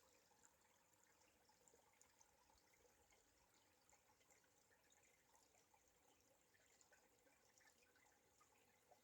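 Faint trickling and dripping of a stream running under ice: a steady run of small drips and gurgles.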